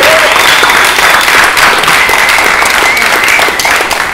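Audience applauding loudly, many hands clapping at once.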